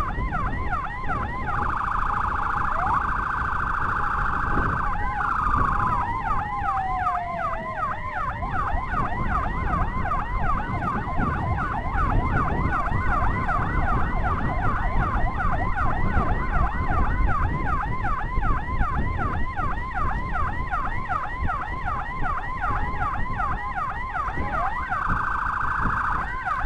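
Escort motorcycle's electronic siren sounding continuously, kept on by hand to clear the way for an ambulance that has no siren of its own. A steady high tone is followed by a falling sweep about five seconds in, then fast rising yelps repeating several times a second, with the steady tone coming back near the end. Road and wind noise runs underneath.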